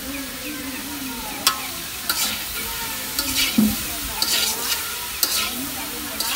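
Sliced greens sizzling in a metal wok, with a metal spatula stirring and scraping against the pan. A steady sizzle throughout, and from about a second and a half in several sharp scrapes.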